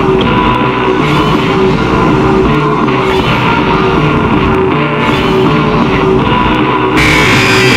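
Loud rock-style music with guitar, playing a riff of short notes that repeats about twice a second. About seven seconds in, a harsher, hissing layer cuts in over it.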